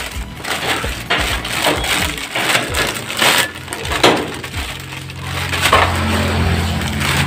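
Clear plastic packaging bag crinkling and rustling in irregular bursts as it is handled and opened.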